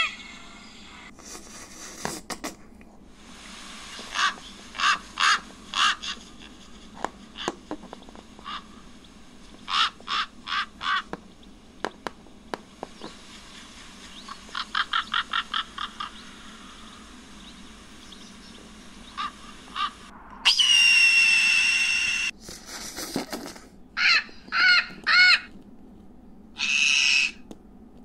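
Recorded bird calls of several species played one after another: groups of short pitched calls, a fast run of short calls a little past the middle, and one long, loud, harsh call about two-thirds of the way through.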